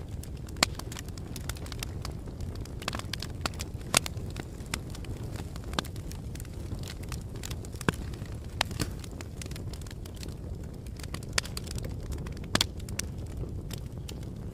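Wood campfire burning, crackling with irregular sharp pops, a few of them loud, over a steady low rumble.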